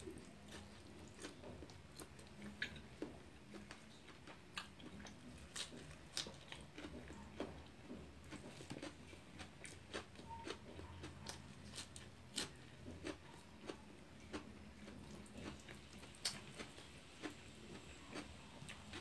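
A person chewing and biting steamed chicken and lettuce, with many short, irregular mouth clicks.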